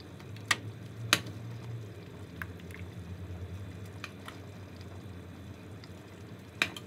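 Faint steady bubbling of thick ketchup sauce kept boiling in the pot, with a few sharp clicks: one about half a second in, one about a second in, and one near the end.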